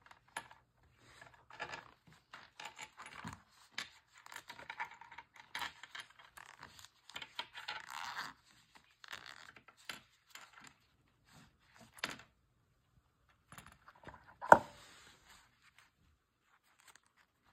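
Zipper of a black nylon knife case being pulled open around the case in short, scratchy runs, with rustling as the case is handled. About two-thirds of the way through there is one sharp knock, the loudest sound, and after it things go quiet.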